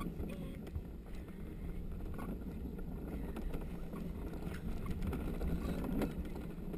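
Gravity luge cart rolling downhill on a concrete track: a steady low rumble from the wheels, with a few short knocks and rattles from the cart along the way.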